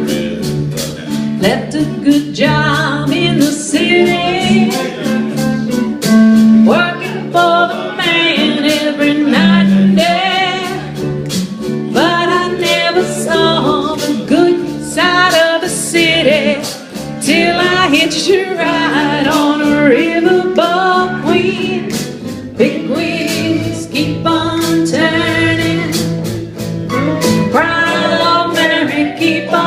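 A band playing a song: singing over guitar, with a steady beat.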